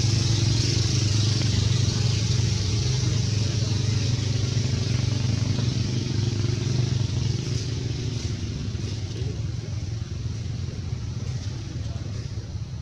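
An engine running steadily with a low hum, growing gradually fainter.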